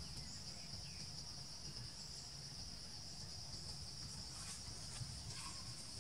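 Steady high-pitched drone of forest insects, unbroken throughout, over a low rumble.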